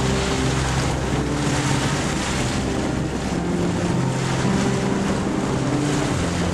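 Loud, steady rush of a river in flood, with background music playing underneath.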